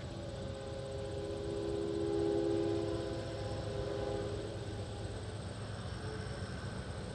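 A distant freight locomotive horn sounding one long chord that swells about two seconds in and fades out after about four seconds, over a low steady rumble.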